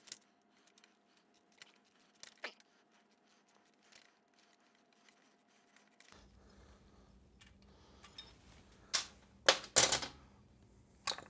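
Hand tools and small metal parts clicking and clinking against a Milwaukee-Eight V-twin engine as bolts are undone, light taps at first and a few louder, sharper metallic clanks near the end.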